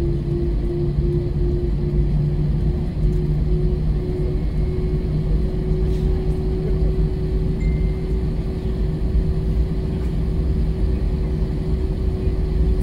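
Airbus A320-family jet airliner taxiing with its engines at idle, heard inside the cabin as a steady low rumble with a constant hum.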